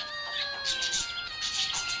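Budgerigar chirping in short bursts over background music that holds long, steady notes stepping in pitch.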